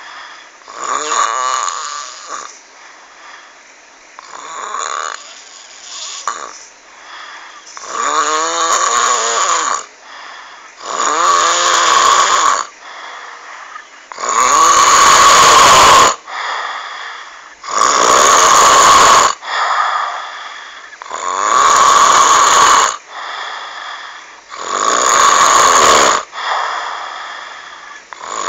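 Snoring: a series of about eight loud snores, one every three to four seconds. From about halfway through they become louder and noisier.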